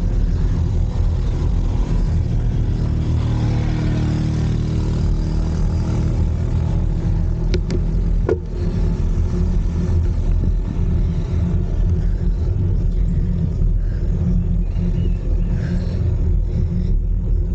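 Steady low rumble of wind buffeting the microphone and road noise from a moving bicycle, with two sharp clicks about eight seconds in.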